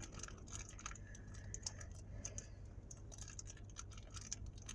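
Faint crinkling of clear plastic packaging, with light, irregular clicks and taps of small plastic toy miniatures being handled.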